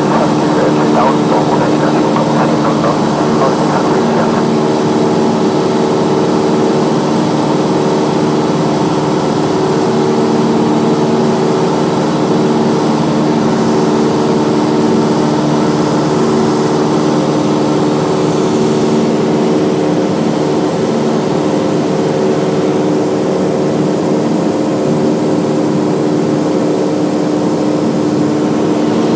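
Cessna light aircraft's engine and propeller running steadily in flight, one even pitched drone with no change in power.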